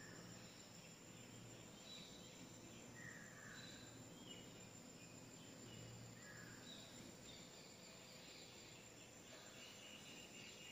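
Near silence: faint room tone with a few faint, short high chirps scattered through it.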